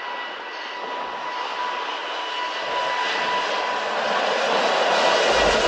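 Twin turbofans of a China Eastern Airbus A350 (Rolls-Royce Trent XWB) at takeoff power during the takeoff roll: a steady whine over a rushing hiss that grows louder, with a deep rumble coming in near the end.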